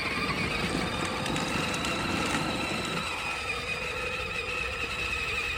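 A small vehicle engine running steadily nearby, with a steady, slightly wavering whine over a low rumble.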